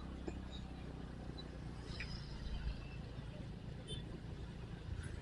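Motorcycle engine running steadily at low speed with road noise, fairly faint, with a few brief high chirps.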